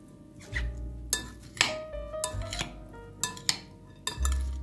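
Metal spoons tossing chopped salad in a glass bowl, clinking sharply against the glass about six times, over background music with held notes and a bass line.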